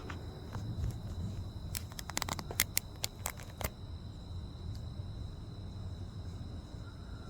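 Crickets trilling steadily over a low rumble, with a quick run of sharp clicks about two seconds in.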